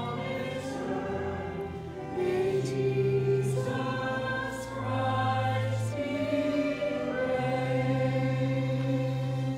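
Voices singing a hymn in slow, held chords, the chord changing every second or two.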